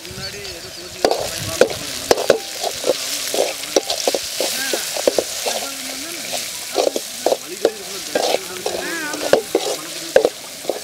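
Chopped onion, tomato and spice powder sizzling as they fry in a large metal kadai, stirred with a perforated steel ladle that scrapes and clinks against the pan at irregular intervals over a steady sizzle.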